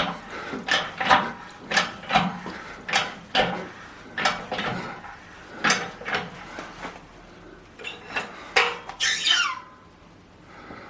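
Metal striking metal: a series of sharp knocks and clinks, roughly two a second, thinning out towards the end, with a short falling squeak about nine seconds in.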